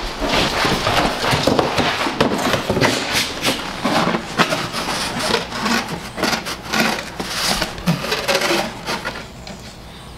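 English bulldog puppy attacking a cardboard shipping box: a rapid, busy run of scratching, scraping and knocking on the cardboard that thins out near the end.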